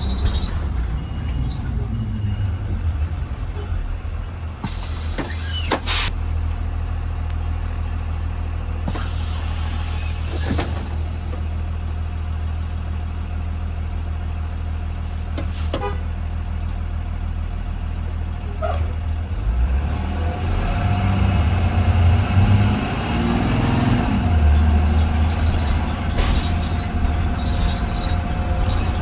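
2020 Blue Bird Vision school bus engine running steadily, heard from inside the bus. It grows louder about twenty seconds in as the bus pulls harder, with a few short clunks and rattles along the way.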